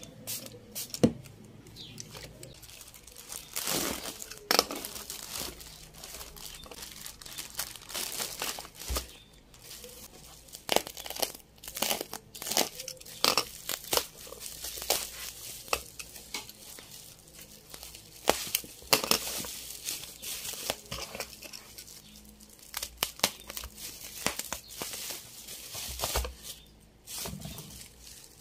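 Plastic parcel wrapping and bubble wrap crinkling and tearing as it is handled and cut open, with irregular sharp crackles and rips.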